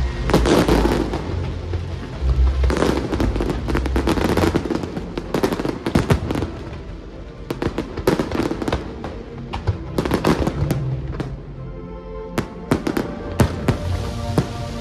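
Aerial fireworks bursting and crackling in quick succession, many sharp bangs one after another, with music playing underneath.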